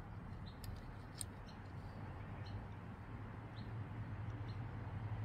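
A few faint sharp clicks, two close together about a second in, as a small die-cast model car is turned over in the fingers, over a steady low hum.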